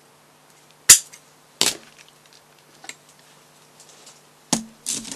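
Scissors snipping through 26-gauge green florist wire: two sharp snaps under a second apart, about a second in. A few fainter clicks follow near the end.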